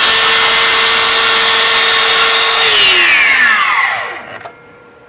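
Makita LS002GZ 40V cordless slide compound mitre saw running at full speed as the blade cuts across the end of a wooden board. About two and a half seconds in the motor winds down with a falling whine, and a click follows near the end.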